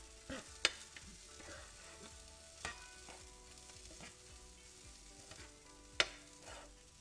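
A utensil stirring a bean, quinoa and vegetable filling in a frying pan over a low sizzle, scraping and knocking against the pan now and then. The two sharpest knocks, about half a second in and about six seconds in, are the loudest sounds.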